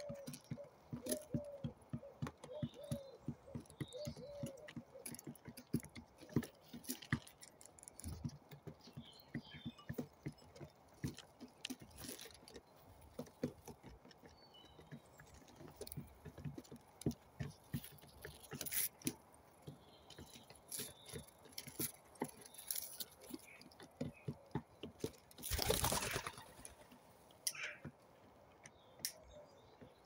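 Domestic pigeons pecking wheat grain off a board: many quick, irregular clicking taps of beaks on grain and wood. Soft cooing is heard during the first few seconds, and a short rushing sound comes late on.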